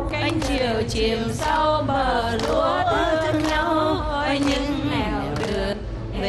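A group of voices singing a Vietnamese song together in unison, with hand claps keeping time.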